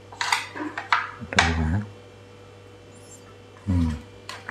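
A metal spoon scraping and clinking against plates and a metal tray as food is spooned onto a plate, with a few sharp clicks. Two brief murmurs of a man's voice and a steady electrical hum underneath.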